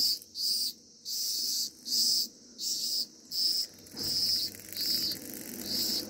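Cicada buzzing in short, high-pitched pulses, about eight evenly spaced buzzes.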